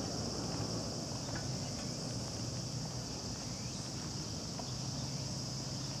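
Steady high-pitched insect chorus, a continuous buzz over a faint low background rumble.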